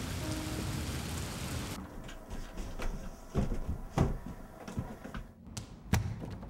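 A steady hiss that cuts off about two seconds in, then footsteps thumping on basement stairs, about one every half second or so, with a louder knock near the end.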